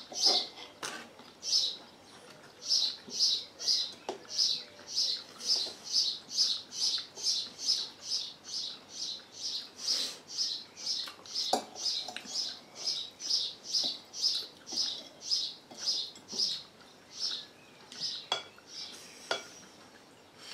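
A steady run of short, high-pitched chirps, about two a second, that stops near the end, with now and then a clink of cutlery or chopsticks on bowls and plates.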